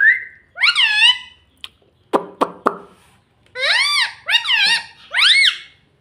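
Rose-ringed parakeets calling: a rising whistle at the start, then a run of short, arching squeaky calls, three of them close together near the end. A few sharp clicks come between the calls about two seconds in.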